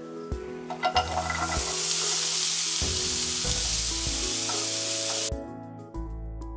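Chopped red onion sizzling loudly in hot oil in a non-stick frying pan as it is tipped in and stirred with a wooden spatula. The sizzle builds quickly, holds, then cuts off suddenly about five seconds in.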